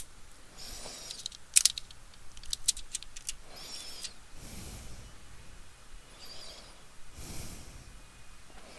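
Small clicks and scraping of laptop internal parts being handled by hand, with one sharp click about a second and a half in.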